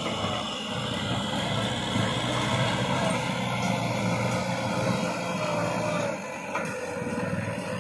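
Farm tractor's diesel engine running steadily under load while it pulls a rear rotary tiller through dry, cloddy soil.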